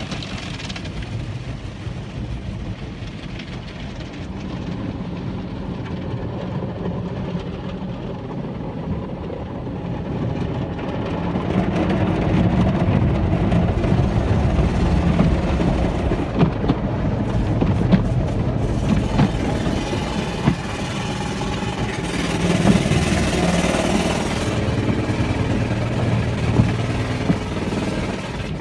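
Automatic car wash heard from inside the car: a steady rumble and pump hum with water and soap foam spraying onto the windshield, growing louder about a third of the way in. A stretch of louder hissing spray comes about three quarters through, with a few knocks, and the rotating brushes reach the windshield near the end.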